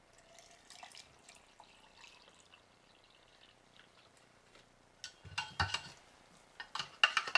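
Pea protein powder being mixed into liquid: a faint pour of water, a dull thump, then a fast run of sharp clicks and rattles from the mixing near the end.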